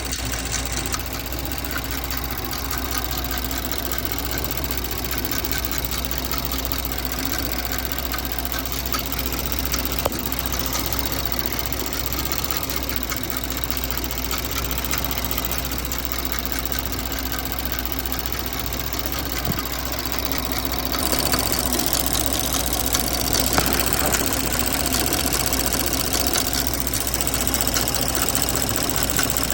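2024 Porsche Macan S's V6 engine idling with a steady, rapid ticking, a noise that appeared after its spark plugs were replaced. The sound gets a little louder and brighter about two-thirds of the way through.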